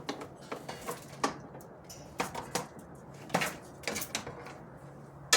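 Irregular small clicks and light knocks of extension cords and plastic plugs being handled and moved about, over a faint steady hum, with a sharper knock near the end.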